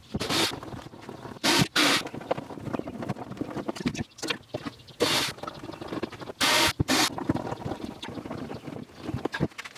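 Workbench assembly sounds: a run of small knocks and clicks, with six short hissing bursts, two close together about a second and a half in, one about five seconds in, and two more about six and a half seconds in.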